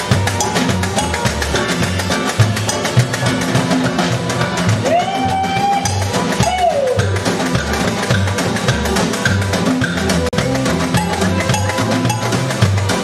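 Acoustic skiffle band playing: a double bass plucks a steady repeating line under fast, dense clicking percussion from snare drum and strummed acoustic strings. About five seconds in, a note slides up, holds briefly and falls away.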